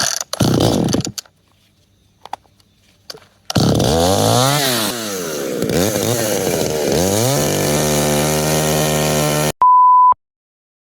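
A two-stroke chainsaw after a few short loud bursts at the start: about three and a half seconds in it runs up, revving up and down in pitch, then holds steady before cutting off suddenly. Right after comes a half-second steady beep.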